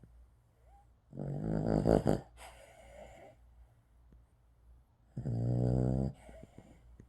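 A dog snoring: two long, low, rasping snores about four seconds apart, with quiet breathing between them.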